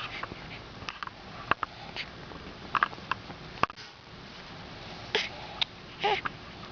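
Short sniffs and brief squeaky noises, scattered every second or so, with a sharp click a little past halfway.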